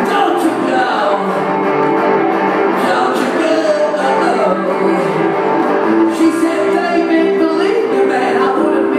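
Live rock song: a man singing over guitar.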